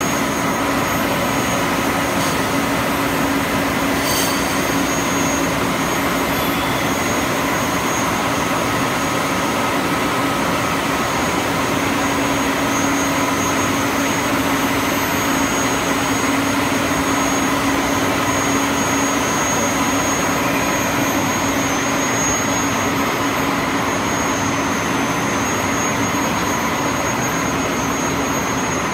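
Kung Hsing FLL100 blown-film extrusion line running on LDPE: a steady, loud machine noise of drive motors and cooling air, with several constant hum and whine tones held throughout.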